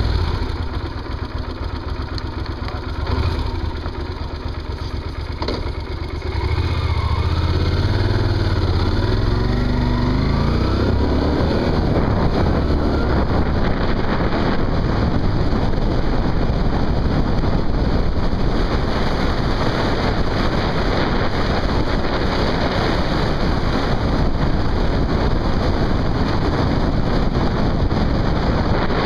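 Motorcycle engine running at low revs, then pulling away about six seconds in with the revs climbing in several rising sweeps. After that, wind rushes over the microphone along with the engine as the bike rides at speed.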